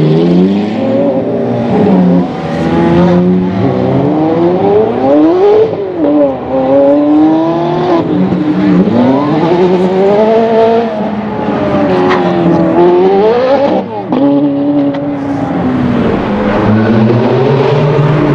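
Sports car engines revved hard in a tunnel, the pitch rising and falling in repeated sweeps about every two seconds. A steady low idle sits under the revs at the start and again near the end.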